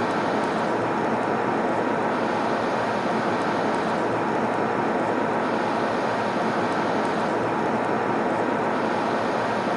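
Steady airplane cabin noise in flight: an even rushing drone that holds the same level throughout, with a faint steady tone in it.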